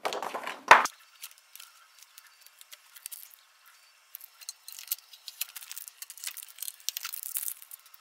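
Packing tape being peeled off a 3D printer's frame: a run of thin, crackly ticks and clicks, thickest in the second half, after a short rustle and knock at the start.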